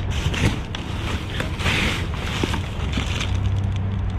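Rummaging through dumpster contents: rustling and clattering of bags and discarded items, with a burst of rustling about halfway through, over a steady low rumble.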